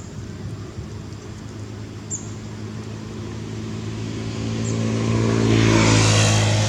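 A motor vehicle passing, its engine hum growing louder to a peak about six seconds in, with faint high bird chirps now and then.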